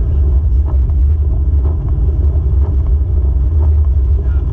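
Car driving on a wet road, heard from inside through a waterproof camera housing: a steady, muffled low rumble of engine and tyres.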